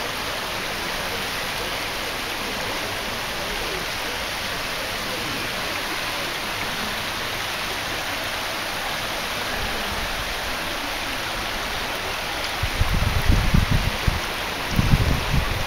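A shallow rocky stream running steadily, a continuous rushing of water. Near the end, two spells of low rumbling buffets on the microphone break in, louder than the water.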